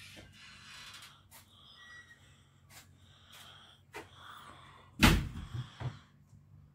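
A sharp knock about five seconds in, followed by two or three lighter knocks, over faint rustling and scattered clicks.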